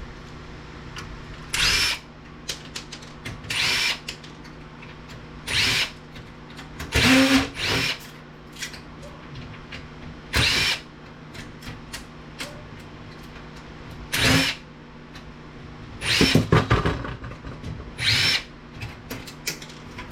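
Power drill run in about eight short bursts, each spinning briefly, as screws are backed out of the circuit boards and steel chassis of a plasma TV being dismantled.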